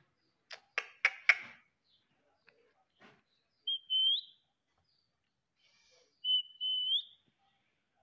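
Female Indian ringneck parrot: four sharp clicks in quick succession near the start, then two short whistled calls a couple of seconds apart, each a brief note followed by a held high tone that rises at its end.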